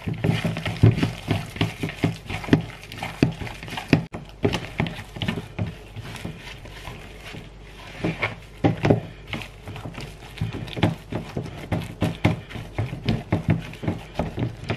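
Minced chicken mixture being squeezed and kneaded by hand in a plastic bowl: irregular wet squelches and slaps, quieter for a couple of seconds in the middle.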